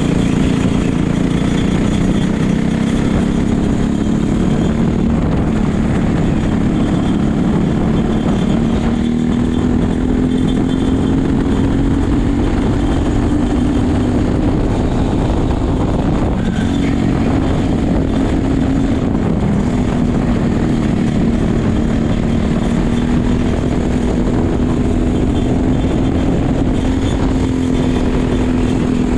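Racing kart engine heard from onboard, running hard at high revs, its pitch climbing slowly as the kart gains speed. About halfway through the pitch drops briefly as it slows, then it climbs again.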